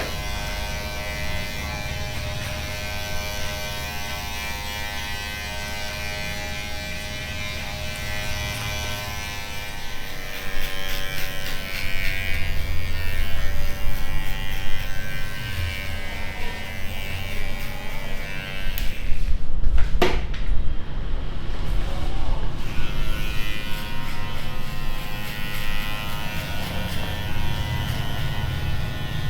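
Electric hair clippers buzzing steadily. The buzz grows louder and rougher about a third of the way in, breaks off briefly with a click about two-thirds through, then comes back.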